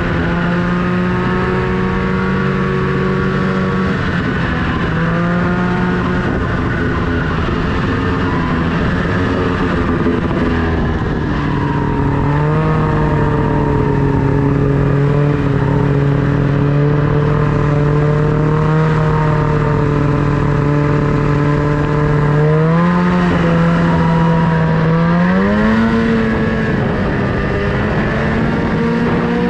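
Snowmobile engine running under throttle as the machine is ridden, its pitch holding steady for long stretches and climbing twice near the end as the rider gives it more throttle.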